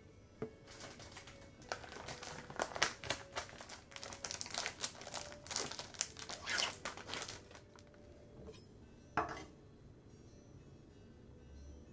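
Thin plastic bread bag crinkling and rustling for several seconds as packaged sandwich bread slices are handled and pulled out, followed by one short knock about nine seconds in; faint background music underneath.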